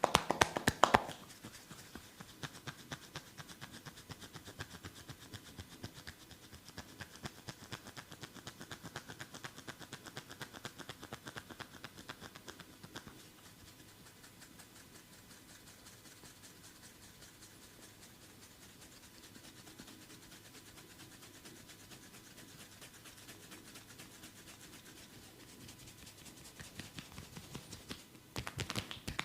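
Massage hands working on bare skin: a fast, even patter of small slaps and taps. It is loud at the very start, softer through the middle, and loud again near the end.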